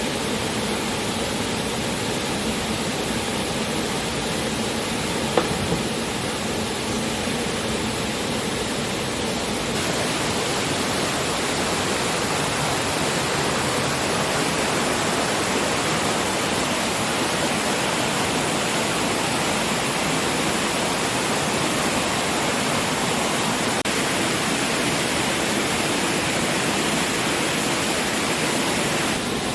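A waterfall pouring, a steady rushing noise of falling water that turns a little louder and fuller about ten seconds in, with one brief knock about five seconds in.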